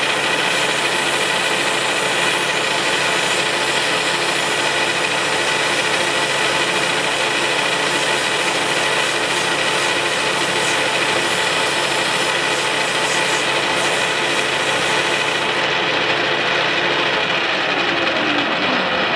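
Metal lathe running steadily with a strip of emery cloth held against the spinning turned part, a rubbing hiss over the machine's hum and whine, dressing the diameter down by a fraction of a thousandth for a close fit. The emery comes off about four-fifths of the way in, leaving the lathe running on its own.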